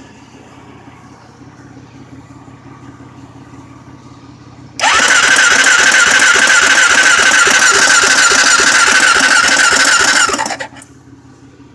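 Honda 400EX's electric starter cranking its single-cylinder engine for about six seconds, a steady whine over rapid chugging, then stopping without the engine catching: the engine won't start.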